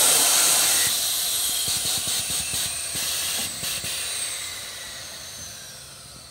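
Air-ride suspension on a Chevrolet C10 pickup dumping its air: a loud rushing hiss that fades steadily over several seconds as the truck drops down onto its wheels, with a thin whistle falling in pitch near the end.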